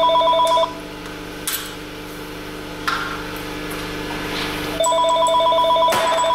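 Telephone ringing with an electronic two-tone warble: one ring ends just under a second in and the next begins about five seconds in. A few short metal clinks come between the rings.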